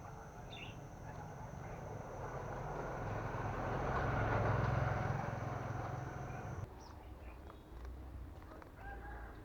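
A motor vehicle passing, its noise and low hum swelling to a peak about halfway, then cutting off suddenly. A few short bird chirps sound near the start and near the end.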